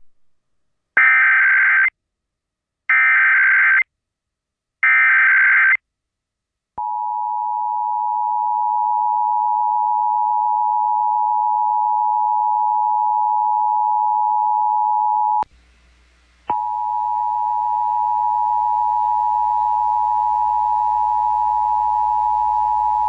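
Emergency Alert System test on FM radio: three short, harsh digital data bursts (the SAME header codes), then the steady two-tone EAS attention signal. About fifteen seconds in, the tone drops out for a second with a click, then comes back with a background hiss and hum.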